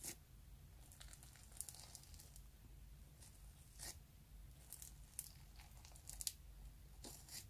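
Scissors snipping through a lump of glitter slime: faint, crisp snips and crackles at irregular intervals, about one or two a second.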